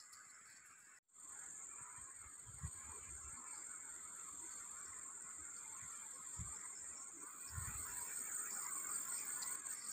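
Outdoor field ambience: a steady, high-pitched insect drone over a soft hiss, with a few dull low thumps. The sound cuts out for a moment about a second in.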